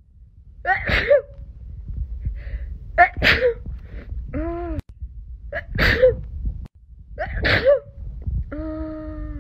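Four sneezes in quick succession set off by a nasal swab, each a short rising voiced intake followed by a sharp burst and a falling voiced tail. A brief voiced vocal sound comes between the second and third, and another is held near the end.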